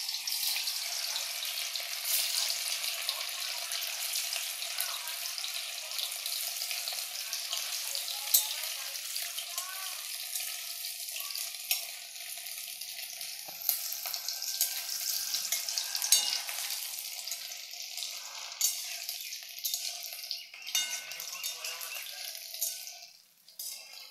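Squares of steamed egg sizzling as they fry in hot oil in a steel wok, with occasional clicks of a spatula against the pan as they are turned. The sizzle drops away near the end.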